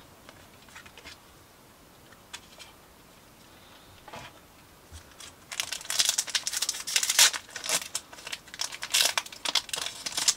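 Pokémon booster pack's foil wrapper being crinkled and torn open by hand, a dense run of crackling that starts about halfway through after a few faint ticks.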